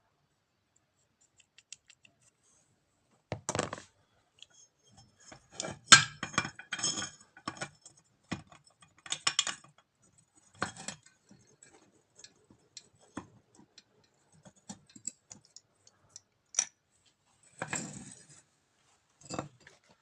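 Irregular metallic clinks and clatters of tools and starter-motor parts being handled on a workbench. They come in scattered clusters with quiet gaps between, the loudest about six seconds in.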